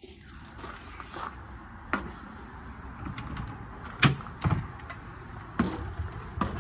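Footsteps and knocks on a fifth-wheel RV's fold-out entry steps and door frame while climbing in: about five separate thumps and clicks, the sharpest about four seconds in, over a steady background hiss.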